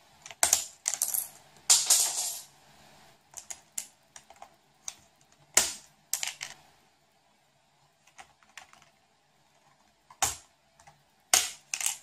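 Plastic keyboard keycaps clicking and clattering as a parrot pries them off with its beak. Scattered sharp clicks come in irregular bursts with quiet gaps between.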